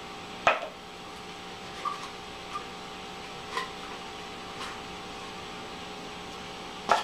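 Foam-board pieces and small plastic parts handled and set down on a wooden table: a sharp tap about half a second in, a few faint taps after it, and a louder knock at the very end, over a steady low electrical hum.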